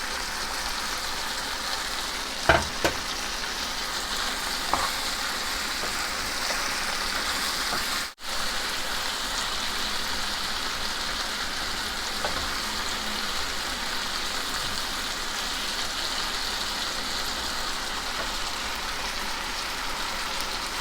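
Onion-tomato masala with cashews sizzling in oil in a pan as it is sautéed and stirred, a steady frying hiss. A few sharp knocks come about two and a half and five seconds in, and the sound cuts out for an instant about eight seconds in.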